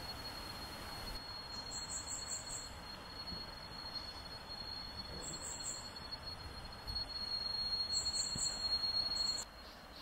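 Forest insects calling: a steady high-pitched whine that cuts off suddenly near the end, with short bursts of even higher pulsed chirping three or four times over it.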